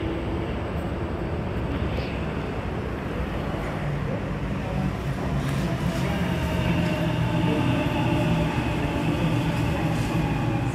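Electric suburban passenger train running past the platform: a steady rumble, with a pitched whine coming in about halfway as the sound grows a little louder.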